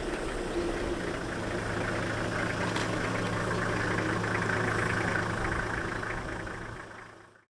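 Vehicle engine idling steadily with a low hum, fading out near the end.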